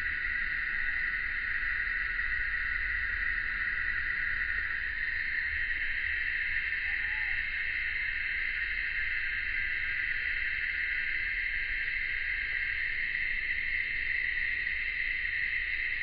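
A steady, unbroken chorus of summer cicadas, high and buzzing, with a few faint short calls from another animal at a lower pitch.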